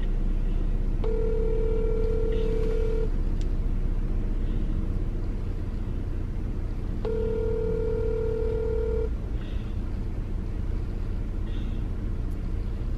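Telephone ringback tone playing through a phone's speaker: two rings, each about two seconds long and four seconds apart, over a low steady rumble.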